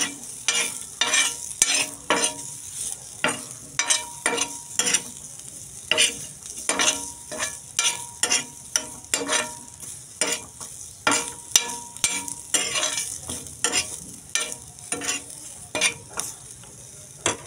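A metal spatula stirring diced potatoes and vegetables frying in a black iron wok, scraping and knocking against the pan about twice a second over a steady sizzle.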